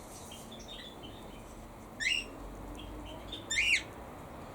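Cockatiel calling: two loud, rising whistled calls, about two seconds in and again a second and a half later, with faint short chirps between them.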